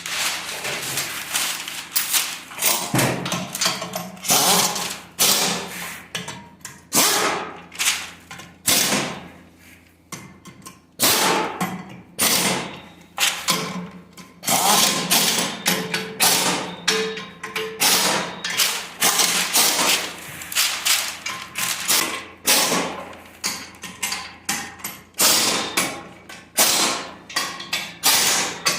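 Repeated sharp knocks and thuds, about one to two a second at uneven spacing, like hammer or tool blows during engine assembly work.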